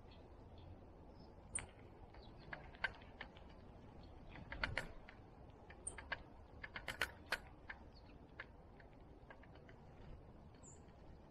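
Activity at a backyard bird feeder: irregular light clicks and taps, thickest in the middle, with a few very short, high chirps from small birds.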